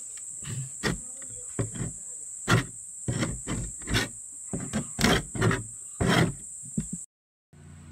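Metal hive tool scraping old beeswax off a wooden beehive lid: a run of short, uneven scraping strokes over a steady high-pitched whine. The scraping stops suddenly about seven seconds in.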